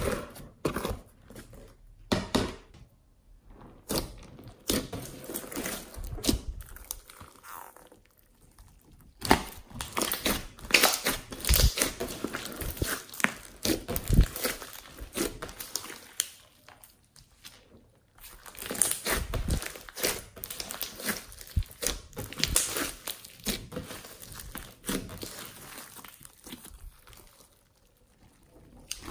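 Hands kneading and squeezing a large mass of sticky mixed slime: irregular bouts of wet squelches and quick clicks and pops, with a few short pauses between bouts.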